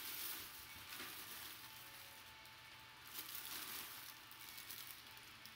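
Faint rustling and crinkling of packaging being handled, in several soft irregular bursts.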